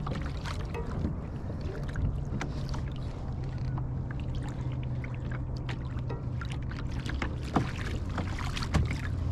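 Water lapping and splashing irregularly against the hull of a moving plastic kayak, over a steady low hum. A couple of sharper knocks come near the end.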